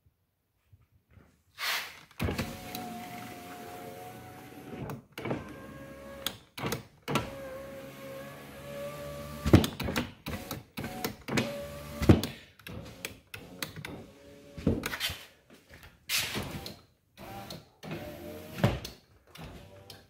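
Ford Territory electric window motors running as the windows are driven up and down from the driver's door switch, a steady hum that starts about two seconds in, broken by sharp clicks and thuds between runs. The windows answer the switch, whose contacts have just been cleaned.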